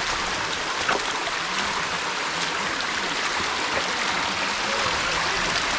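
Steady rushing of a rocky stream, with the waterfall ahead adding to it. A short knock about a second in.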